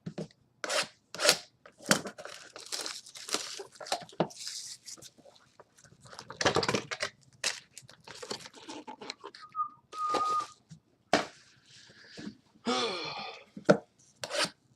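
Cardboard trading-card boxes being torn open and foil card packs crinkling as they are pulled out, in short irregular rustles and tears. A short steady beep sounds about two-thirds of the way through.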